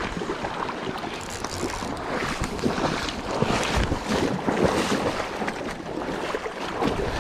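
Water splashing in irregular bursts as a hooked sockeye (red) salmon is pulled in through the shallows, over the steady rush of the river. The splashing is busiest in the middle.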